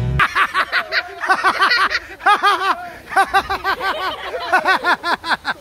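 Hearty laughter: a voice laughing hard in quick rising-and-falling bursts, several a second, almost without pause.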